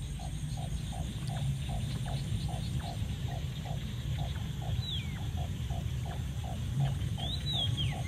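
Outdoor animal chorus: a steady, even train of short calls about three a second, with a couple of high, falling whistled bird calls about five seconds in and near the end, over a low rumble.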